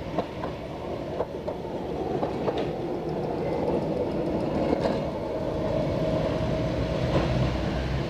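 Calcutta J-Class bogie tramcar with a coupled four-wheel trailer running past, a rumble that grows as it nears. Its wheels give irregular sharp clicks over rail joints and crossings, and a steady hum comes in through the middle.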